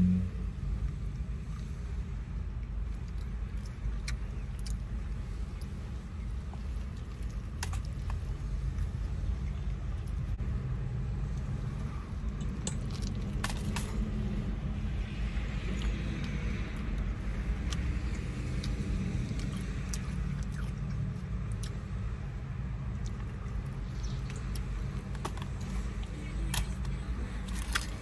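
Close-up chewing and mouth sounds of someone eating a burrito, with scattered soft clicks and smacks, over a steady low rumble inside a car.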